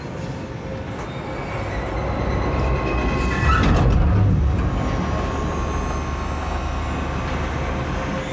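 Rail vehicle running with a steady low rumble that swells loudest about three and a half seconds in.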